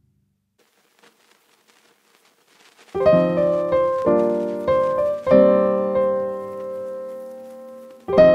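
Near silence, then background piano music begins about three seconds in, with chords struck and left to fade before the next.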